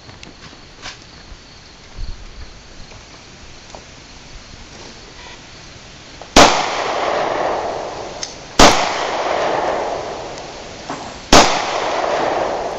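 Three pistol shots from an HK USP, the first about six seconds in and the others roughly two and three seconds after it. Each crack is followed by a long, echoing tail.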